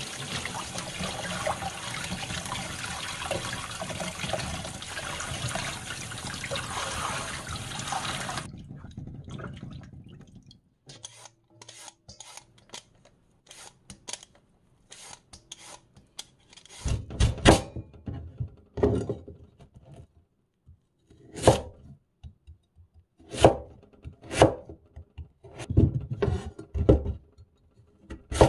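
Tap water running into a stainless steel sink bowl as a radish is rinsed by hand, stopping about eight seconds in. Then a vegetable peeler shaving the radish with light scraping clicks, and then a chef's knife slicing through the radish and striking a wooden cutting board, about a dozen irregularly spaced cuts.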